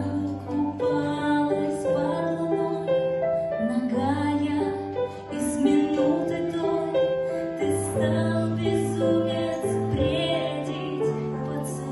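A woman singing a slow song into a microphone, accompanied by a digital piano playing held bass notes and chords.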